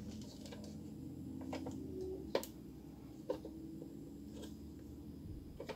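Hard plastic clicks and light knocks as the imaging drum unit's housing and OPC drum are handled and fitted together: a sharp click about two and a half seconds in, another about a second later, and one near the end, with fainter ticks between.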